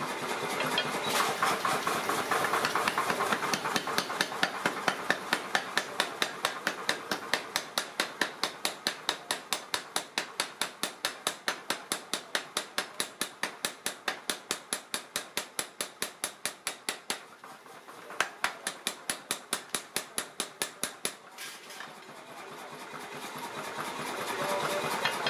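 Power hammer pounding a red-hot iron trowel blank in a long run of rapid, even blows, with a short break about two-thirds through, stopping near the end. A steady machine hum rises at the start and again once the blows stop.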